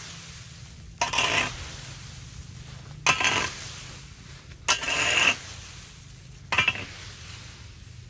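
Metal garden rake scraping across concrete and dragging dry leaves into a pile: four strokes, each starting with a sharp scrape of the tines, about every one and a half to two seconds.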